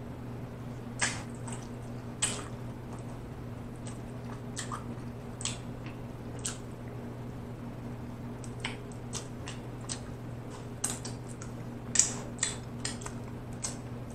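Close-miked eating sounds: wet lip smacks and sucking at barbecue sauce on fingers and a rib bone, coming at irregular moments with a few louder smacks near the end, over a steady low hum.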